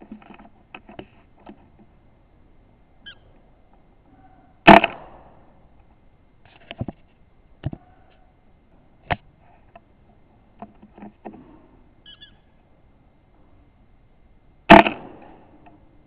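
Two shots from a Walther Rotex RM8 .177 PCP air rifle, about ten seconds apart, each a sharp crack with a short tail, with small clicks and knocks of rifle handling between them.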